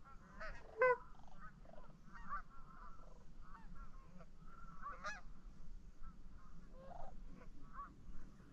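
Goose honks: a scattered series of short honking calls, some overlapping, with the loudest about a second in.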